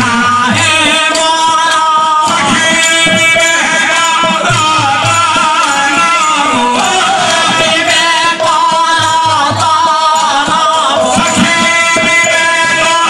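Odia pala performance music: singers carrying a gliding devotional melody, accompanied by a hand drum and small hand cymbals.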